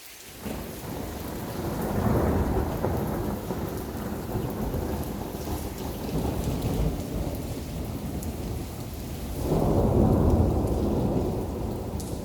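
Rolling thunder over steady rain. The rumble starts about half a second in, swells around two seconds, rolls on, and swells again near the end before easing.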